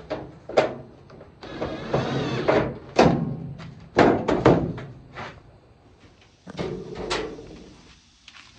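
Sheet-metal clanks and thuds from a GE dryer's cabinet and door being handled: about a dozen sharp knocks, with a scraping slide of metal about one and a half to three seconds in.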